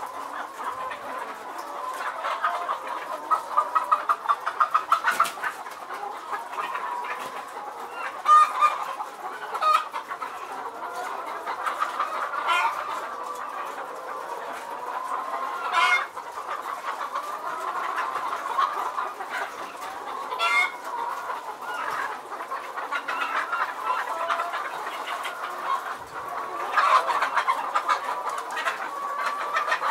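A large flock of caged chickens clucking and cackling continuously, many birds at once, with a burst of rapid cackling a few seconds in and a few sharp clicks.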